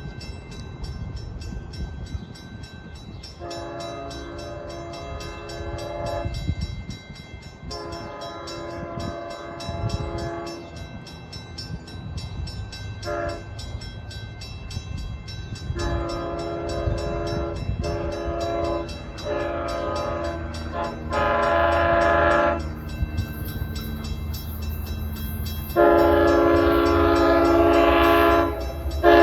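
Long Island Rail Road diesel locomotive's multi-note air horn blowing a grade-crossing signal: two long blasts, a short one, then further long blasts. The blasts grow louder toward the end as the train approaches, over a low rumble.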